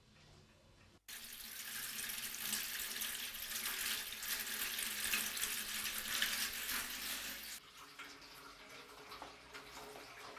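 Water running from a kitchen tap into a sink: a steady hiss that starts suddenly about a second in and stops abruptly with about three seconds left.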